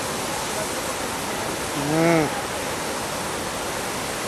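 Steady rush of the Kaveri river pouring over the low check-dam weir of Balmuri falls. About two seconds in comes one short voice call that rises and falls in pitch.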